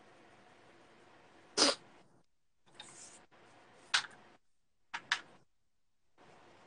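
A few short, sharp taps and knocks, the loudest about a second and a half in and a quick double tap about five seconds in, with a softer brief rustle near three seconds.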